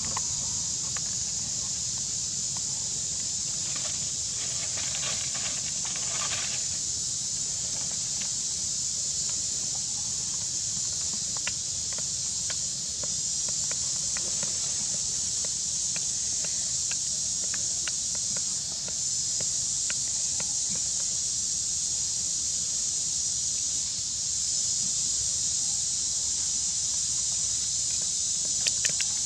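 Steady high-pitched drone of insects, with a few faint ticks and rustles about four to seven seconds in.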